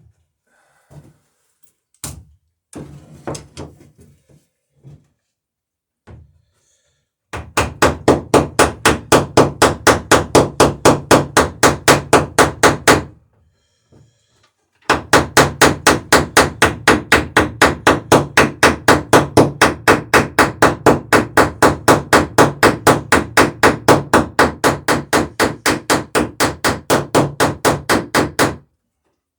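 Hammer peening a copper boat rivet in a wooden plank, spreading and rounding the rivet head. The taps are rapid and even, about four to five a second, in two long runs with a short pause between, after a few scattered knocks.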